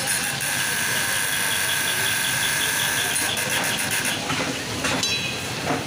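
Chicken karahi frying in a wok over a gas burner and stirred with a metal ladle, giving a steady hiss of flame and frying. A steady high whine runs through the first four seconds, then stops.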